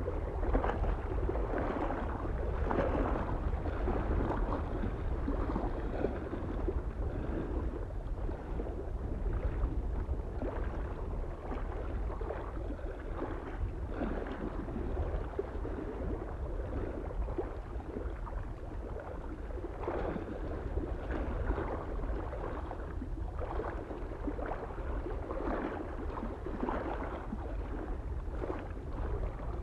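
Small waves lapping and splashing irregularly against a mountain lake shore, a surge every second or two, over a steady low rumble of wind.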